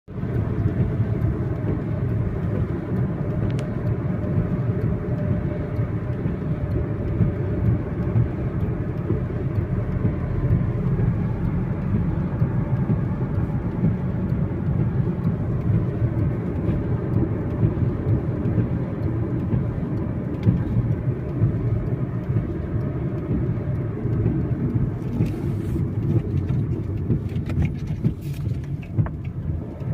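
Steady low rumble of a car on the move: road, tyre and engine noise.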